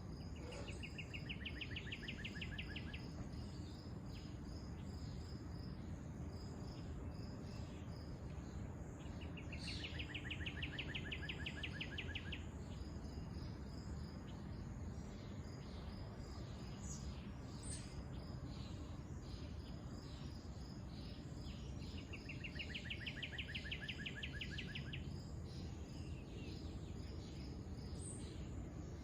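Outdoor insect chorus: a high chirp repeats steadily, about two or three times a second, while a rapid pulsed trill sounds three times, each for about two and a half seconds, near the start, about ten seconds in, and about twenty-two seconds in, over a steady low rumble.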